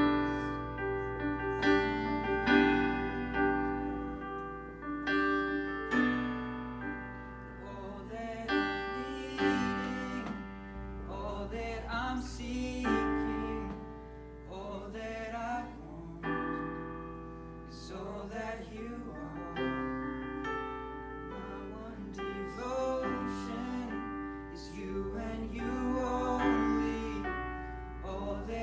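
A song played on piano with a singing voice, sustained keyboard chords underneath and the voice coming in about eight seconds in.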